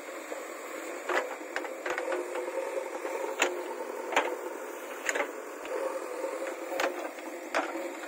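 JCB backhoe loader's diesel engine running steadily under load while the backhoe bucket digs dry, stony soil. Irregular sharp knocks and scrapes, about one a second, come from the bucket and clods of earth.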